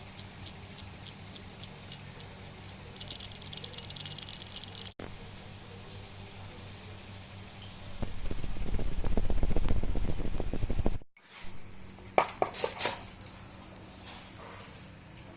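Metal hand tools clicking and clinking while working on the drive belt tensioner: separate clicks, then a run of rapid ratchet-like clicking. A few seconds of loud low rumbling come in the middle, and a few sharp metallic clinks near the end.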